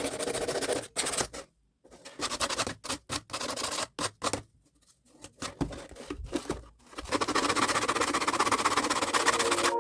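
Scraping and rubbing from hand work on a build piece, in short bursts with two brief pauses, then a steady fast rasping from about seven seconds in.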